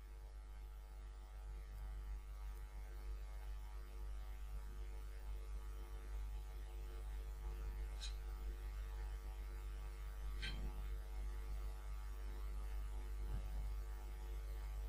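Steady low electrical hum with a fixed set of unchanging tones, typical of mains hum in a recording setup. Two faint clicks come a couple of seconds apart past the middle.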